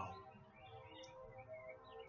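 Faint background music with a few faint, short, falling bird chirps about a second in.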